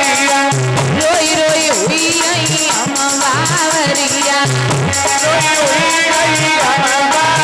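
Live Indian devotional folk music accompanying a bhajan: a drum keeps a steady rhythm, a rattle shakes in time, and a wavering melody runs over held tones.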